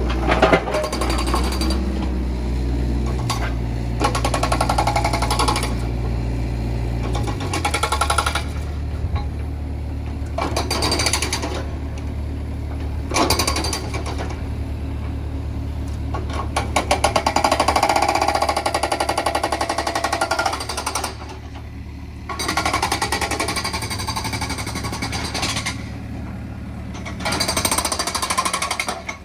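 Rapid percussive hammering in on-and-off bursts, like a jackhammer or hydraulic breaker, over a steadily running Case 695ST backhoe loader diesel engine. The engine note drops about a quarter of the way in.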